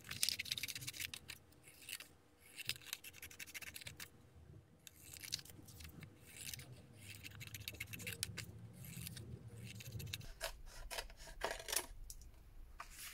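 Scissors cutting through paper in a run of crisp snips, with a few short pauses between cuts.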